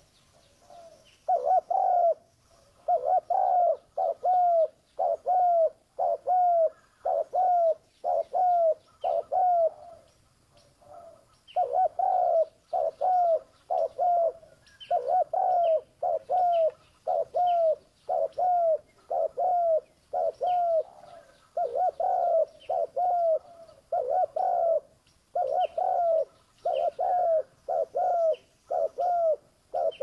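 Spotted dove cooing over and over: a long run of short, repeated coo notes, roughly one to two a second, broken by a few brief pauses.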